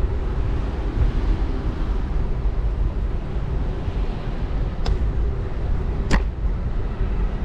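Steady low rumble of wind and riding noise on a bike-mounted GoPro's microphone while cycling, with two sharp clicks in the second half.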